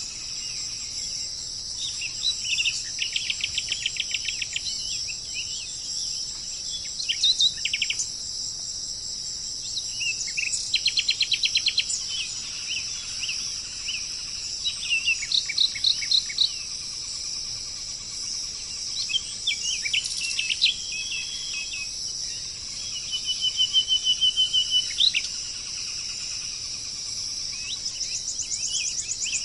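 Several birds singing in short phrases of rapid repeated notes and trills, one after another, over a steady high chorus of insects.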